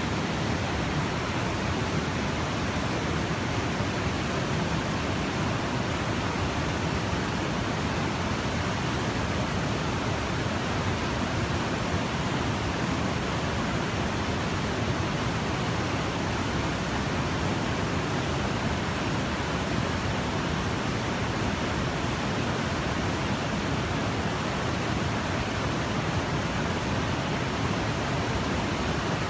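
Steady rushing of flowing water, loud and even, with no breaks.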